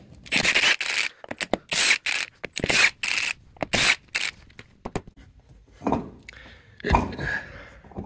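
Cordless impact wrench spinning the lug nuts off a go-kart wheel in four short bursts over the first few seconds, followed by a couple of duller knocks.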